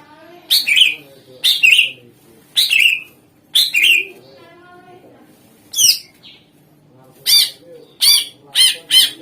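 Cucak ijo (green leafbird) singing, loud, sharp notes that sweep up and down in pitch, repeated about once a second and coming faster near the end.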